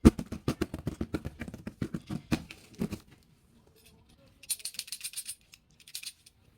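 A boxed plastic toy set being handled and shaken: a rapid, dense rattle of small pieces clicking for about three seconds, then brief crinkly rustling of the packaging twice near the end.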